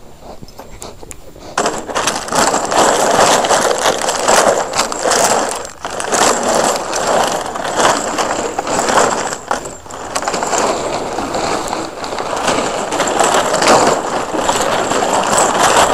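Loud scraping and rustling of a jute bite suit rubbing against the microphone while a dog grips and tugs the suit. It starts suddenly about one and a half seconds in and surges and dips unevenly.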